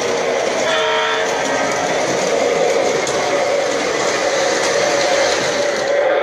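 MTH Rail King O-gauge Union Pacific E-8 diesel pair running along shelf track: a steady, loud rumble of wheels and motors on the rails, with a brief pitched tone about a second in.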